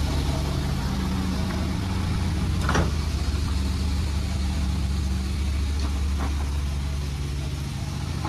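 Sawmill machine's motor running steadily without load, with two short, sharp knocks.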